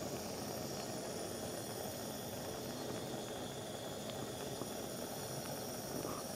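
Gas stove burner flame hissing steadily under a metal plate being heated to colour it, with a few faint ticks.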